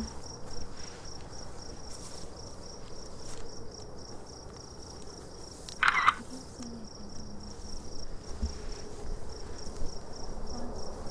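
Night insects such as crickets chirping in a steady, evenly pulsing rhythm. About six seconds in there is one short, sharp sound, louder than anything else.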